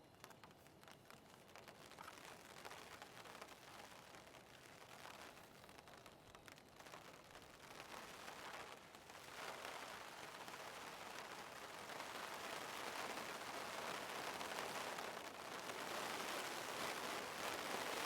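Heavy rain falling, with a dense crackle of separate drop hits. It grows steadily louder.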